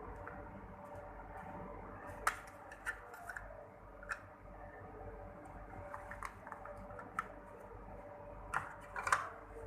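Scattered light clicks and taps, about a dozen, over a faint steady hum, with a small cluster of them near the end.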